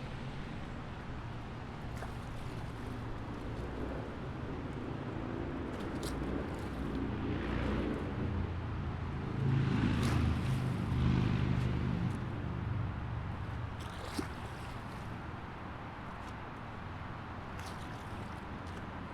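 Highway traffic: a steady rumble of passing vehicles that swells to its loudest about halfway through as a vehicle goes by, then eases off. A sharp tick stands out about three-quarters of the way through.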